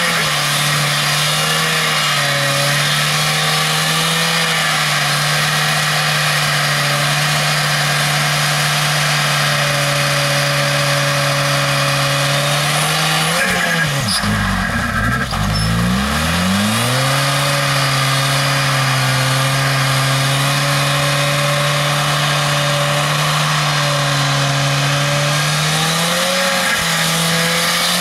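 Dodge Caliber SRT-4's turbocharged 2.4-litre four-cylinder held at high revs during a burnout, the front tyres spinning and squealing on the asphalt. About halfway through the revs drop sharply and climb straight back, then rise a little more near the end.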